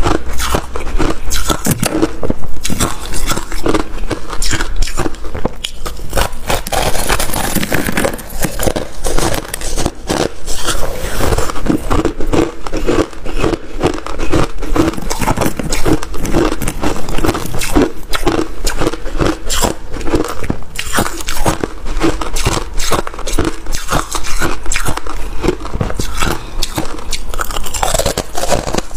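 Close-miked chewing of mouthfuls of freezer frost: a dense, continuous run of crisp crunches and crackles as the icy frost is bitten and ground between the teeth.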